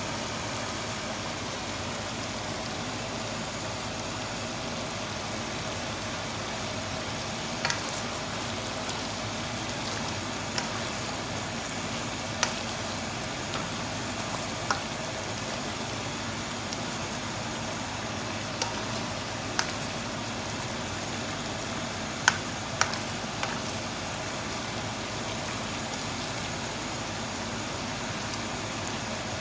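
Chicken, cabbage and potato stew simmering in a wok with a steady hiss, while a plastic spoon stirs it, clicking and knocking against the pan about ten times from around eight seconds in.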